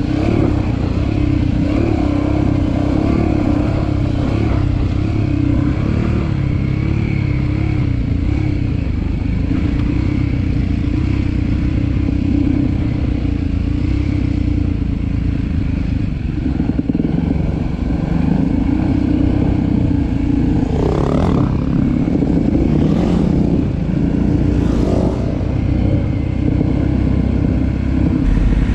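Dirt bike engine running steadily along a trail. It gives a few short rises in revs in the last third.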